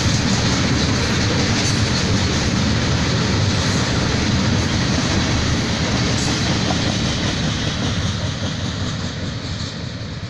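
Freight train tank cars rolling past on the rails, a steady rumble of wheels on track. It fades from about eight seconds in as the end of the train moves away.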